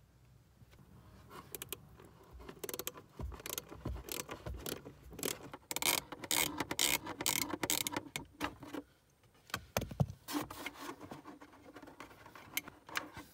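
A screwdriver bit clicking and scraping as a T25 Torx screw is undone from a plastic heater air duct, then the duct's plastic rattling and rubbing as it is worked loose by hand. The clicks and scrapes come irregularly, with a short pause about nine seconds in and a sharp click just after.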